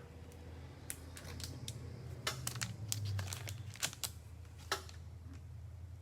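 Crinkling and scattered sharp clicks of card boxes and their packaging being handled, busiest in the middle, over a steady low hum.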